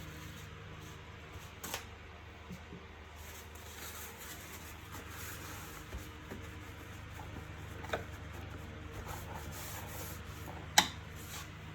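Plastic housing parts of a wet-and-dry vacuum cleaner being handled and fitted together during reassembly: quiet rubbing and scraping with a few sharp clicks, the loudest about 11 seconds in. A low steady hum runs underneath.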